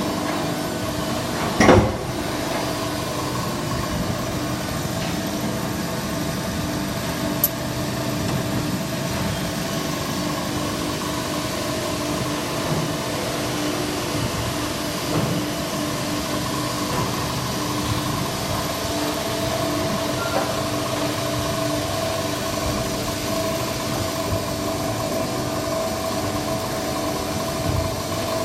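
Automated injection-moulding parts-feeding machine running with a steady mechanical hum, broken by a loud knock about two seconds in and a sharp click a few seconds later.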